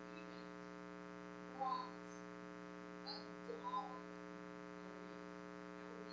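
Steady electrical mains hum with a stack of overtones, with a few faint, brief sounds about two seconds in and again near four seconds.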